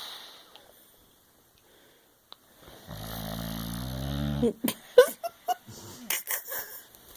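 Boxer dog snoring in its sleep: a breath fading near the start, then one long low snore about three seconds in, followed by a run of short snorts and clicks.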